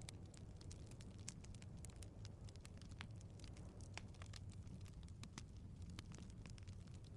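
Faint wood fire in a fireplace crackling: irregular sharp pops and snaps, several a second, over a soft low rumble of the flames.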